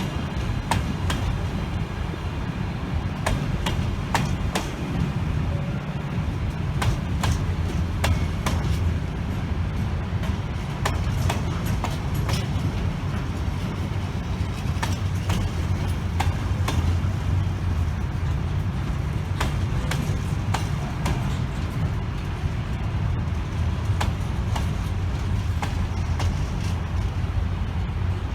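A train running past at the platform: a steady rumble with many sharp clicks from the wheels on the track.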